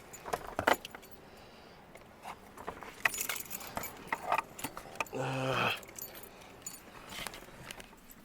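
Keys jangling amid scattered clicks and knocks of handling things, with a short low hum about five seconds in.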